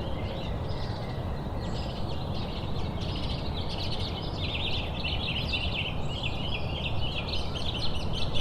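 Outdoor nature ambience: many small birds chirping and twittering, growing busier about three seconds in, over a steady low rush of background noise.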